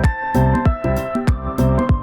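Background music: an electronic track with a steady beat of about three strokes a second under sustained pitched tones.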